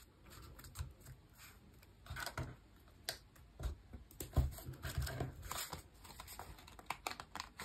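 Hands pressing down and handling a layered cardstock card on a crafting mat: soft paper rustles with scattered light taps and scrapes.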